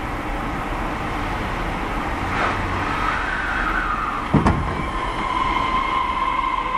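Osaka Metro 31-series subway train running, heard from on board: a steady rumble of wheels on rail with a motor whine that slides down in pitch and then holds steady. There is one heavy thump about four and a half seconds in.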